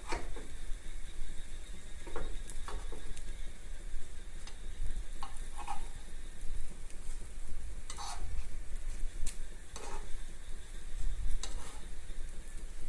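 Egg paniyaram sizzling in a paniyaram pan, with scattered short scrapes and taps of a utensil against the pan as the pieces are turned.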